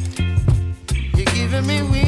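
Background music with a steady beat, a held bass line and a melody over it.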